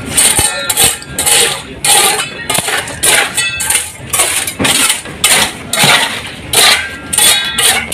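Metal hand tool scraping and clinking against a concrete slab in repeated strokes, roughly one or two a second, as debris is cleared from around the base of PVC pipes.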